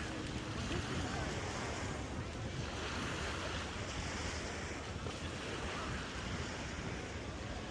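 Waves breaking and washing up on a sandy beach, with wind buffeting the microphone.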